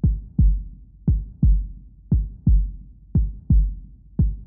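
Heartbeat sound effect: pairs of deep thumps, lub-dub, repeating about once a second, laid in as a suspense cue.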